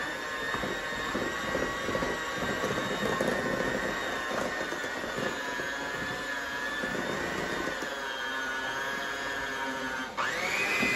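Electric hand mixer running on low speed, its beaters whipping cream cheese, butter and powdered sugar into frosting in a glass bowl. About ten seconds in, it is switched to a higher speed and the motor's whine jumps up in pitch and gets louder.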